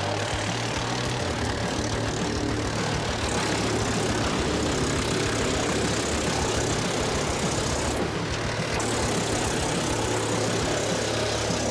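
Large wood chipper running steadily: a constant low engine hum under a continuous noisy rush from the machine at work.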